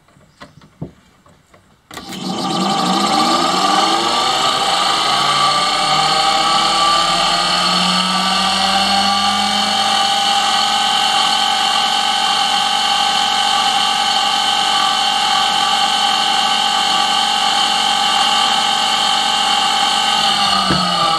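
Brushed permanent-magnet electric motor switched on about two seconds in. It spins up with a rising whine, runs steadily with several tones, then winds down near the end. It sounds better after cleaning, but the owner puts a remaining rub down to bits of metal stuck to the magnets brushing the rotor.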